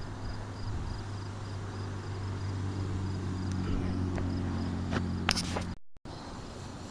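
Night insects chirping in an even, repeating rhythm over a steady low hum, with a few sharp clicks about five seconds in, then a brief dropout.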